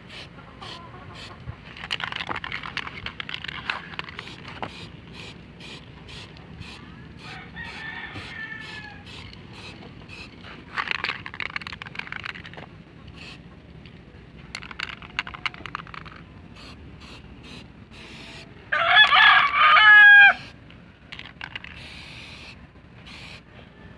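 Aerosol spray-paint can hissing in short bursts a few seconds apart as it is sprayed onto a bicycle frame. A rooster crows faintly about a third of the way in, then loudly, the loudest sound here, about three-quarters of the way through.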